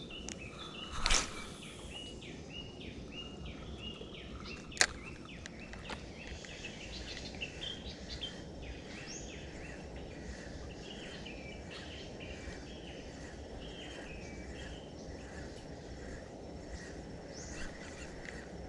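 A fishing rod swishing through a cast about a second in, then a single sharp click a few seconds later. After that, a steady low outdoor hiss with many short, repeated high chirps.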